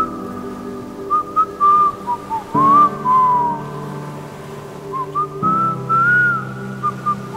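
Background music: a whistled melody sliding between notes over soft held chords, which change twice.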